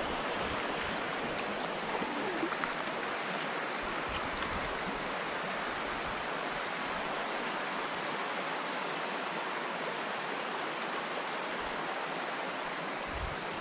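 Shallow mountain stream running over a stony bed: a steady rush of water.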